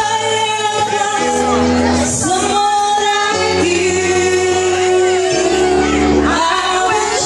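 Live band music with a woman singing into a microphone, holding long notes over a bass line whose notes change every second or two.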